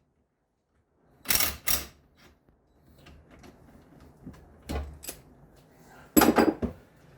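Metal clanks and clatter of tools and parts being handled during strut work: two quick knocks, a few more a few seconds later, and a louder clatter near the end.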